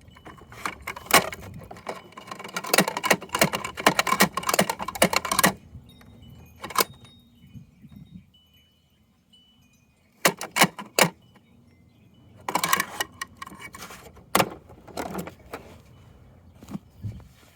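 Small hard objects clattering and rattling in bursts, the longest in the first five seconds, then several shorter rattles: toy trash being tipped and shaken in a toy garbage truck.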